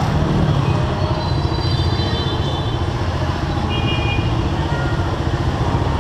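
Busy street traffic dominated by motorbike engines, a steady low rumble, with a couple of short high-pitched horn beeps partway through.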